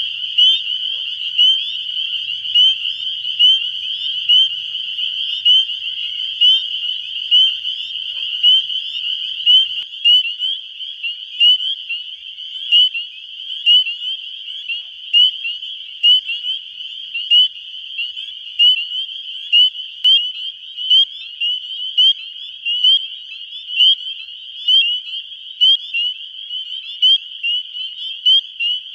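Spring peeper calling, a loud, short rising peep about once a second, standing out against a dense chorus of other peepers. The parabolic microphone brings the one frog forward of the chorus.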